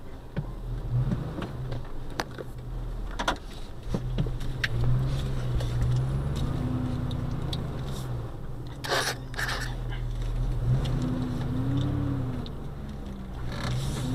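Pickup truck engine running, heard from inside the cab as the truck is driven slowly, its pitch rising and falling a few times. Scattered light knocks, and a brief rushing noise about nine seconds in.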